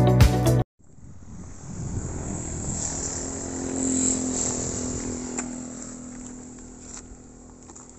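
Background music cuts off just under a second in, then a distant engine hum swells to a peak mid-way and slowly fades away, like something passing by.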